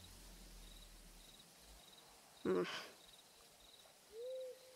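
Outdoor night ambience: faint crickets chirping in short regular pulses, and an owl hooting twice near the end. A brief voice sound cuts in about two and a half seconds in.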